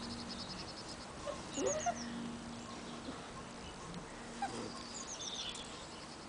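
A beagle puppy whines twice, with short pitched sounds: one rising about a second and a half in and one falling at about four and a half seconds, as it mouths its teething blanket. Small birds chirp briefly in the background.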